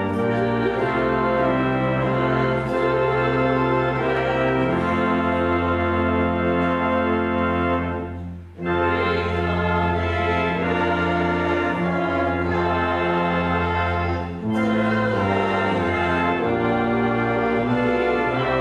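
Church pipe organ playing slow, held chords over a deep pedal bass, with a short break between phrases about eight and a half seconds in.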